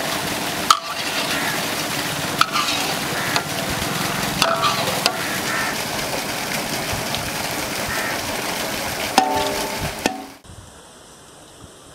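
Chicken sizzling as it fries in a large iron kadai, stirred and turned with a long-handled metal spatula that scrapes and knocks against the pan every second or so, with a brief metallic ring about nine seconds in. The frying sound stops abruptly near the end, leaving a faint outdoor background.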